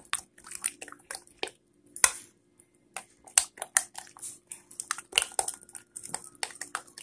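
A spoon stirring thick cherry pie filling and cornstarch in a glass measuring cup, making irregular wet squishing and scraping with quick clicks against the glass. The filling is being mixed until it thickens.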